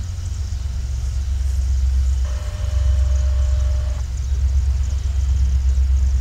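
Steady low rumble of Norfolk Southern train 191's diesel locomotives as the train approaches. About two seconds in, a single steady tone sounds for a little under two seconds.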